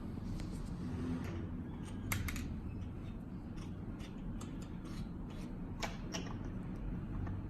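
Scattered clicks and taps of shockwave handpiece parts being handled and fitted together, the loudest about two seconds in and again near six seconds, over a steady low hum.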